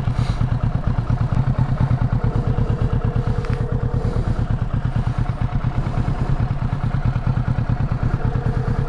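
2020 Kawasaki Ninja 650's parallel-twin engine running steadily with an even pulse, while a phone ringback tone sounds twice, each ring about two seconds long, the second starting about four seconds after the first ends.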